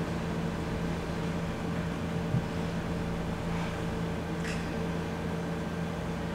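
A steady low machine hum. A brief soft knock comes about two and a half seconds in, and a short hiss a couple of seconds later.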